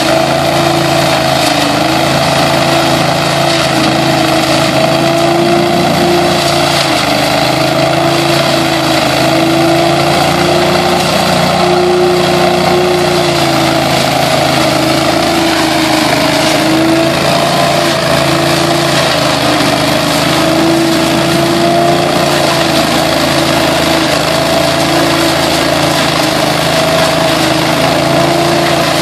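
Billy Goat DL1801VE truck-mounted debris loader running steadily. Its 18 hp engine drones under a rushing of air and leaves being sucked up the intake hose, with a whine whose pitch wavers slightly.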